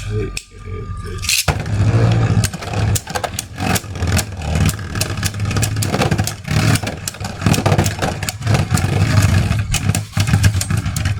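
Beyblade spinning tops launched from a ripcord launcher about a second and a half in, then spinning and clashing in a plastic stadium: a steady low whir broken by many sharp clacks as the tops hit each other and the walls.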